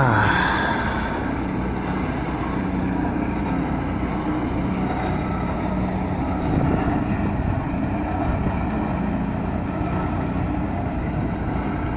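Boatyard lift crane's engine running steadily, with a low hum, as it moves a boat hoisted in its slings; the noise is a little louder in the first second.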